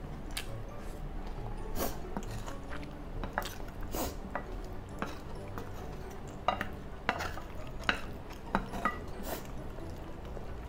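A wooden spoon scraping and knocking against a glass bowl as fried rice is scooped up, a string of irregular clicks and taps, sharpest about two-thirds of the way in. Soft chewing sounds lie underneath.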